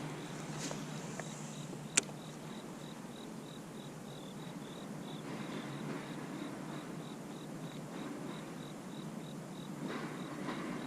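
Insects chirping in an even rhythm, about three high chirps a second, over faint steady background noise, with one sharp click about two seconds in.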